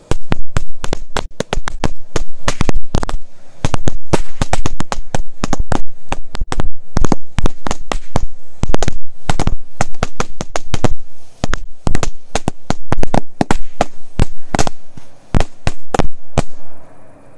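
A 100-shot firecracker belt (a string of firecrackers) going off: a rapid, uneven run of sharp bangs, several a second. It starts suddenly and stops near the end.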